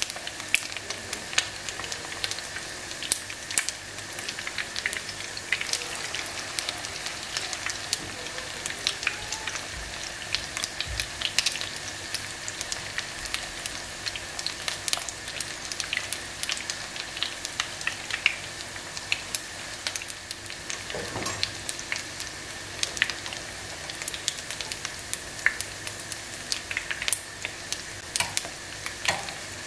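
Zucchini and pasta fritters shallow-frying in vegetable oil in a pan: a steady sizzle with frequent sharp crackles and pops of spattering oil.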